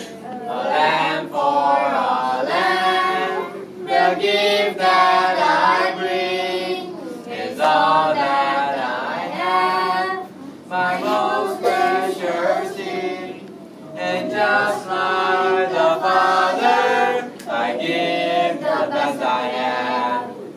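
A group of voices singing a song together, in sung phrases a second or two long with short breaks between them.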